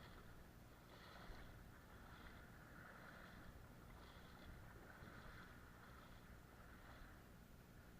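Near silence with a faint, uneven wash of flowing river water.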